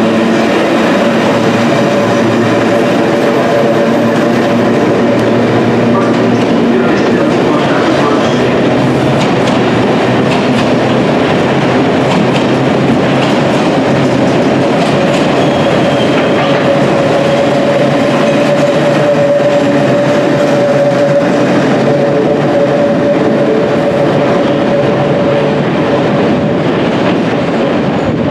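A London Underground engineering train, hauled by battery-electric locomotives and made up of loaded wagons, runs through an underground station: a steady rumble and clatter of wheels over the rails. A steady high tone runs through the middle of the passing.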